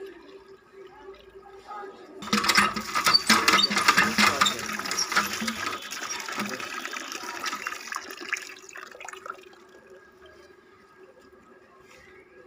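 Tap water gushing and splashing into a plastic tub of cracked wheat being rinsed, starting suddenly about two seconds in and dying away after about eight seconds. Afterwards only a faint hand swishing of the wet grain.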